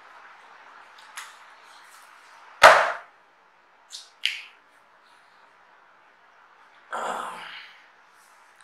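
One sharp, loud thump about a third of the way in, followed by a few short rustles of paper as the pages of a book and loose sheets are handled.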